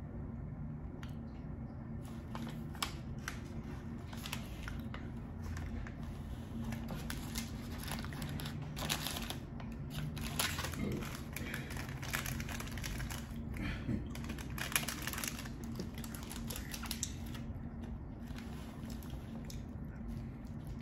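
A snack packet being handled: a run of irregular, crisp crackles and clicks over a low steady hum, thinning out near the end.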